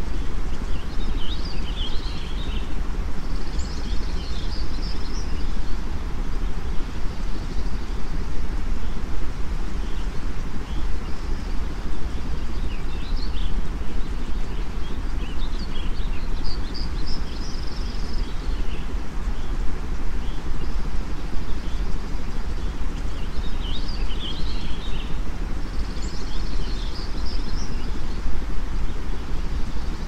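Steady white-noise rush, heaviest in the low end, overlaid with bird chirping that comes in short flurries of a few seconds every several seconds, in a mixed sleep soundscape.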